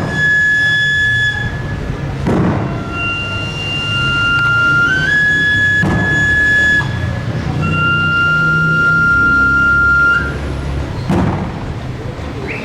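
A chirimía plays a slow tune of long held high notes that step up and down in pitch. A deep tambor drum is struck four times, a few seconds apart.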